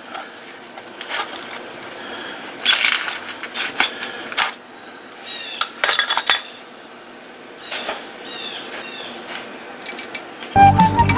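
Scattered metallic clinks and clanks of a steel C-clamp and tools being handled against a car frame, irregular and short. Background music comes in near the end.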